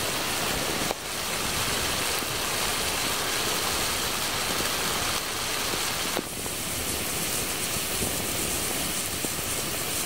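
Ground turkey and red peppers sizzling in a cast iron skillet over a campfire as they cook down, a steady hiss with two brief dips, about a second in and again around six seconds in.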